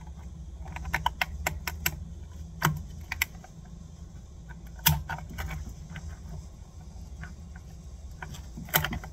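Small sharp clicks and taps of a thin shim and hand tools being worked into a motorbike's rear wheel hub: a quick run of clicks about a second in, then single clicks, the loudest about five seconds in, over a steady low hum.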